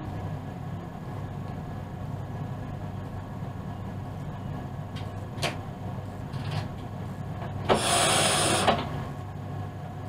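Steady electrical hum in the driver's cab of an ÖBB class 4124 electric multiple unit. A couple of sharp clicks come about halfway through, and near the end a loud hiss lasts about a second, starting and stopping abruptly.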